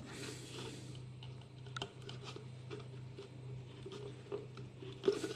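Faint handling of plastic: a few small clicks and rubbing noises as thin airline tubing is pushed through a plastic container, over a steady low hum.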